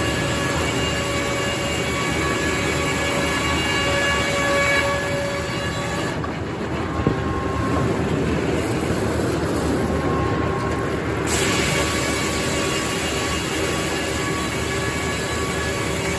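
Circular sawmill running: a steady whine of several tones over a noisy mechanical rumble. The high hiss fades for about five seconds midway, with one short knock, then comes back abruptly.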